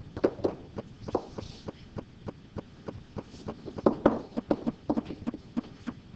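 A rapid series of light clicks or taps, fairly even at about four a second.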